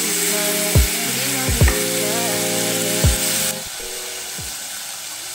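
Food frying in hot oil, an even sizzling hiss that drops off sharply about three and a half seconds in. Hip-hop background music with deep sliding bass kicks plays under it.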